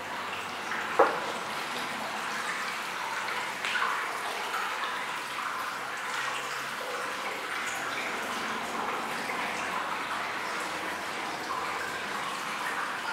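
Hot-spring water pouring and trickling steadily into a tiled bath, with one sharp knock about a second in.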